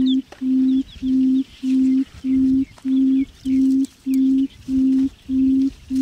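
A low steady tone beeping on and off in a very even rhythm, about one and a half times a second, each beep lasting about half a second. Faint high bird chirps sound behind it.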